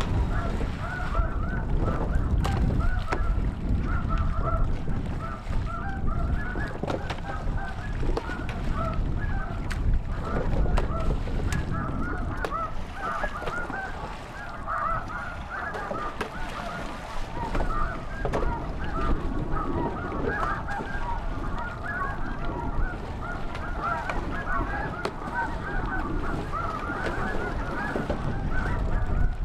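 A dense, unbroken chorus of snow goose calls: many high, yelping honks overlapping one another, over a steady low rumble.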